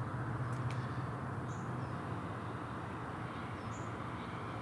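Quiet, steady background hum and hiss, with two faint, brief high chirps.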